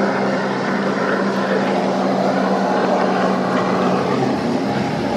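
An engine running steadily, a low drone of constant pitch, with some low rumble from wind or camera handling near the end.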